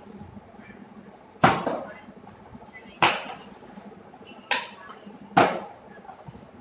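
Plastic water bottle flipped and landing on a hard marble floor: four sharp knocks, the first three about a second and a half apart, the last coming sooner.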